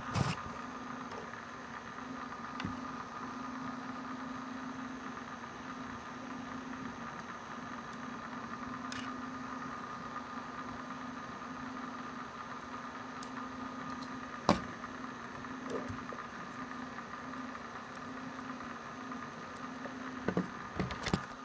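Steady low electrical hum, with a sharp plastic click about two-thirds of the way through as a connector is pushed home. There are light handling knocks at the start and a few more near the end.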